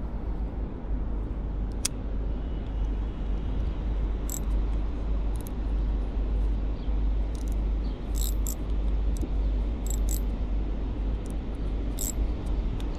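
Outdoor background: a steady low rumble, with short, very high chirps or ticks scattered through the middle and later part.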